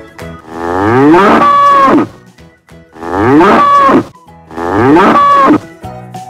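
Bull mooing three times, each call a second or more long and rising in pitch.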